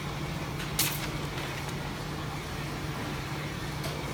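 Steady low mechanical hum of laundromat machinery, with a sharp tap about a second in and a lighter one near the end.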